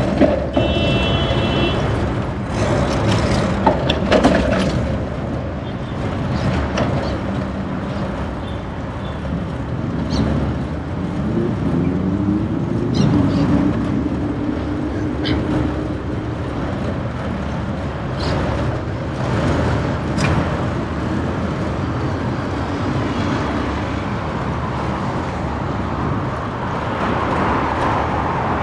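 City street traffic heard from a bicycle: motor vehicles running and passing, with scattered clicks. About eleven seconds in, one engine rises in pitch as it speeds up, then holds steady for a few seconds.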